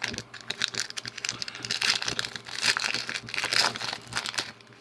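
Foil wrapper of a Pokémon card pack being torn open and crinkled by hand: a dense, continuous run of crackling.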